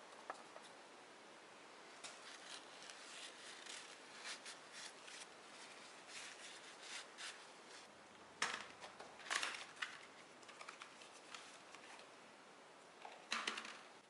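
Hands handling an oil filter and a cardboard box: scattered light scrapes and taps, with louder knocks about eight and nine seconds in and a short cluster near the end.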